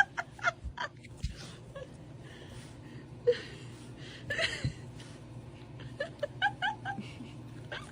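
A person laughing quietly in short breathy bursts, with a quick run of giggles near the end.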